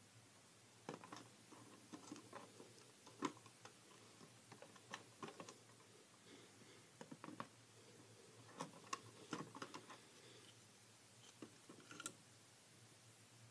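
Lego bricks and plates handled and fitted together, giving faint, scattered plastic clicks and knocks at irregular intervals.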